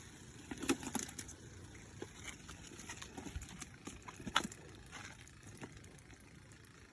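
Faint scattered clicks and light knocks, as of hands handling gear and fish, over a low steady hiss; the sharpest knocks come about a second in and again about four seconds in.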